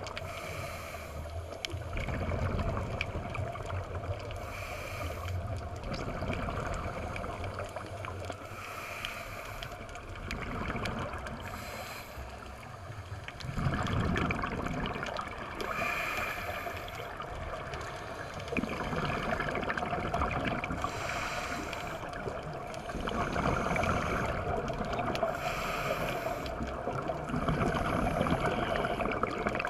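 Underwater scuba breathing: a diver's regulator hissing on each breath and exhaled bubbles gurgling, repeating about every four to five seconds over steady underwater noise.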